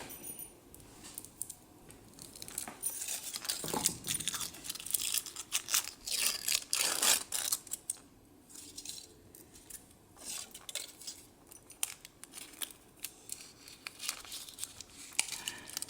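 Foil wrapper of a chocolate surprise egg being peeled and torn off by hand: an irregular run of crinkling and crackling, busiest in the middle.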